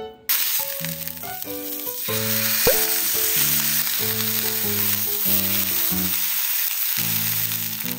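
Block of beef sizzling as it is seared on its sides in a hot frying pan, the hiss starting suddenly a moment in, with background music playing over it.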